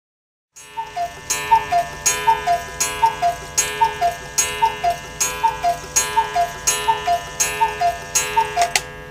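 Anton Schneider mechanical cuckoo clock striking the hour. Its bellows-driven cuckoo call (a high note, then a lower one) repeats steadily about every three-quarters of a second, each call with a ringing strike of the clock's gong.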